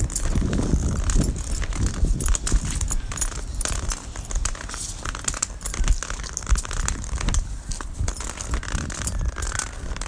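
Handling and rustling noise from a phone recorder carried while walking: many irregular clicks and crackles over a low rumble.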